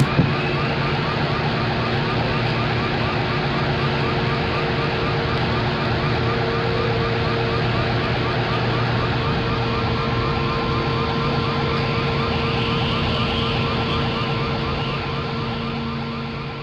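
A siren-like electronic warble, short rising chirps repeating several times a second over a steady low hum, starting to fade out near the end.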